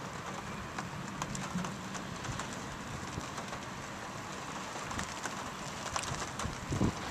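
Storm rain falling steadily, with irregular taps of drops striking a nearby surface and one louder thump near the end.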